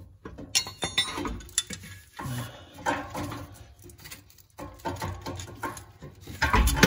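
Rusty catalytic converter and exhaust pipe of a 2012 Chevrolet Equinox 2.4L being wiggled and worked loose by hand: irregular metal knocks, clinks and scrapes.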